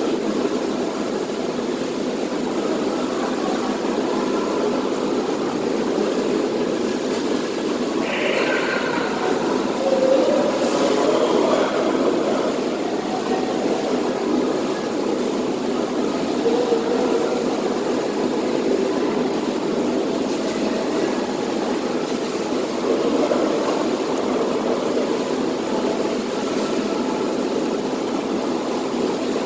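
Steady mechanical hum of an indoor pool room, with a few brief faint voices.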